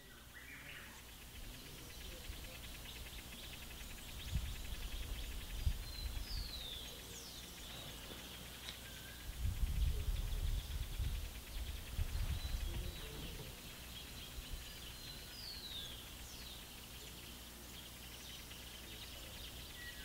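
Rural outdoor ambience: birds giving short falling chirps over a steady high insect buzz. Gusts of wind rumble on the microphone, loudest about four seconds in and again from about ten to thirteen seconds in.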